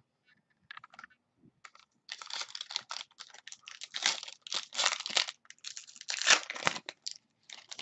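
Foil wrapper of a football trading-card pack crinkling and tearing as it is opened by hand: a few faint clicks, then several seconds of dense, irregular crackling.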